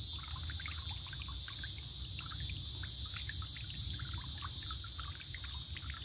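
An AISITIN solar-pump fountain jet splashing and trickling into a shallow bowl of water, with many small droplet splashes. A steady high insect chorus runs behind it.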